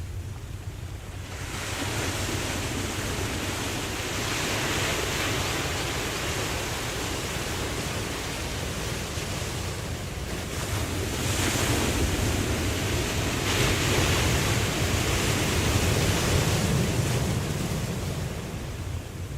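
Ocean waves washing in as a steady hiss that swells about a second and a half in and again around the middle, then eases off near the end, over a low rumble of wind.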